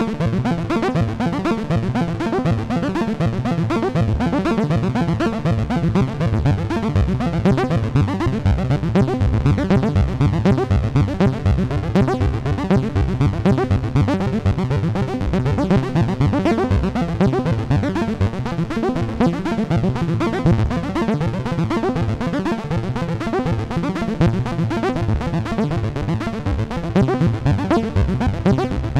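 Dave Smith Instruments Prophet '08 analog polyphonic synthesizer playing a patch: a continuous, dense stream of quick pitched notes.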